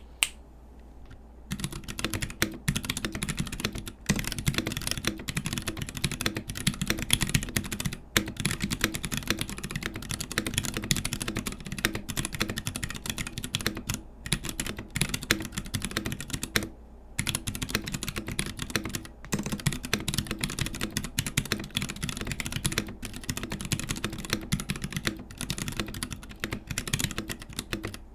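Fast continuous typing on a Melody96 mechanical keyboard with tactile Gateron Brown switches, a brass plate, PBT keycaps, an aluminium top and an acrylic bottom case, sitting on a bare table. The key clacks start about a second and a half in and pause briefly a few times.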